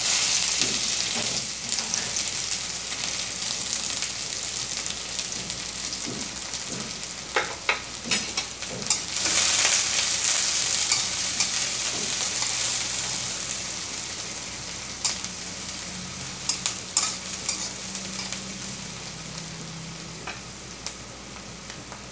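Chopped onions sizzling in hot oil in a steel kadai, the sizzle loud at first and dying down steadily. A metal spatula clicks and scrapes against the pan in scattered spells as the onions are stirred.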